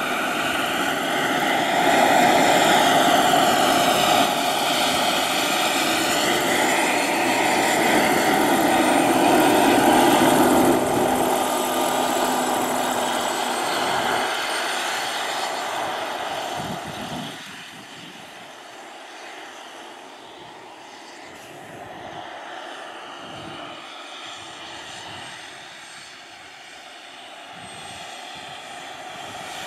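Radio-controlled scale Kamov Ka-32 model helicopter flying a low pass: a steady engine whine and rotor noise whose pitch sweeps up and down, loud at first and falling away sharply a bit over halfway through as it climbs off into the distance.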